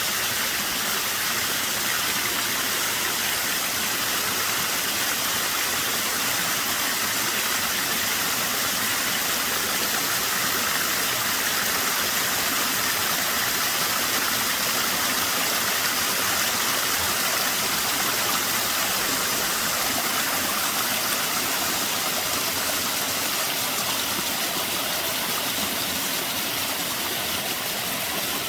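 Waterfall with a rather low flow of water, a steady, even rush of falling water with no breaks.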